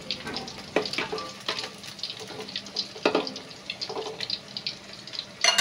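Water spinach and flour fritters frying in hot oil in a wok, sizzling with irregular crackles and pops. A brief louder noise comes near the end.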